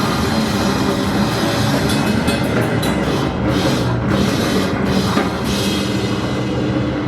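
Live band playing loudly with a full drum kit, with a run of sharp cymbal and drum hits through the middle.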